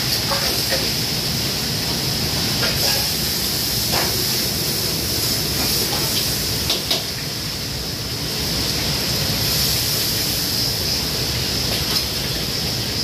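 Commercial wok-range burners and food frying in the wok make a steady loud hiss, with a few short clanks of a metal ladle against the wok, the loudest a pair about seven seconds in.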